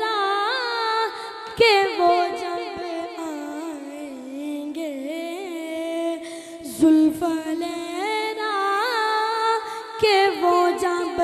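A boy singing a naat unaccompanied into a microphone, holding long, drawn-out notes that bend and waver in pitch.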